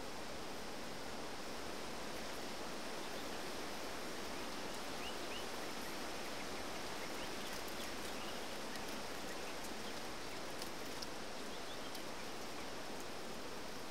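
Steady outdoor field ambience: an even hiss with no distinct elephant calls, and a few faint chirps about five to six seconds in.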